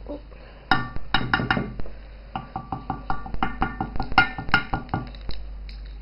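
Loaf pan being knocked and tapped repeatedly while it is tilted and shaken to spread a dusting of flour over its buttered sides. The sharp, ringing knocks come in quick, irregular clusters, starting just under a second in and stopping near the end.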